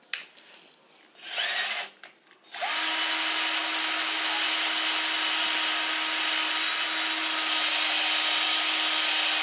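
Cordless 24 V drill, a DeWALT-branded copy, drilling a bit into thick, very hard steel plate. It gives a short burst, then runs steadily for several seconds with a constant motor whine over the grinding of the bit in the steel. The bit is making no further headway into the hole.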